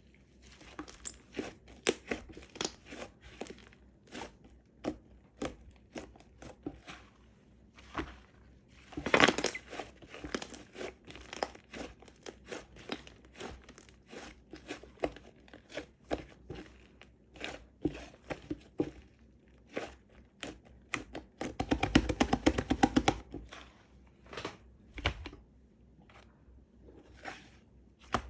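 Slime being squished, stretched and folded by hand: sticky crackling and popping clicks, with a louder burst about nine seconds in and a longer dense run of crackles a little past twenty seconds.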